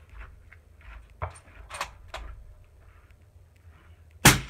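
A few faint clicks, then a single suppressed rifle shot about four seconds in: a 22-250 bolt-action rifle fired through a Thunder Beast Ultra 7 .223 suppressor. The shot peaks at about 130 dB at the shooter's ear.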